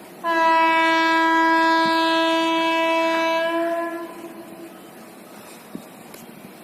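Train horn giving one long, steady blast of about four seconds that fades out.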